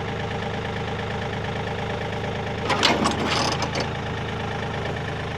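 Kioti 3520 compact tractor's diesel engine idling steadily, with a brief louder burst of rattling noise about three seconds in.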